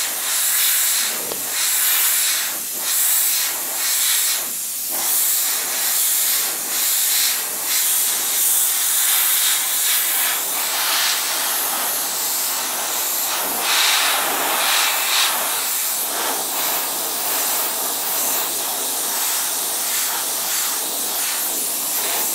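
Airbrush hissing steadily as compressed air sprays paint, broken by a few brief pauses in the first several seconds where the trigger is let off.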